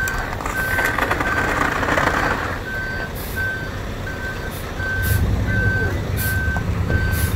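Reversing alarm on a sheriff's mobile command truck beeping steadily, about three beeps every two seconds, as the truck backs up. The truck's engine runs under it and grows louder about five seconds in.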